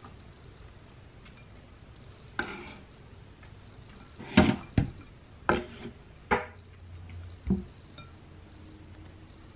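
A chef's knife scrapes minced garlic across a wooden cutting board, then knocks sharply against a stainless steel mixing bowl about six times as the garlic is pushed into it.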